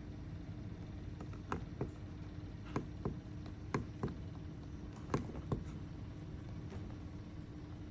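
Bonaire evaporative cooler clicking: sharp clicks at uneven intervals, some in quick pairs, about nine in the space of a few seconds, over the steady hum of the running unit.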